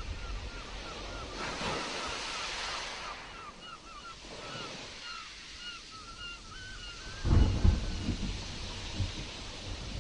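Stormy sea: a wave washes in about a second and a half in. A run of short, rapid chirps sounds over the surf, and a heavy low rumble breaks in about seven seconds in, the loudest moment.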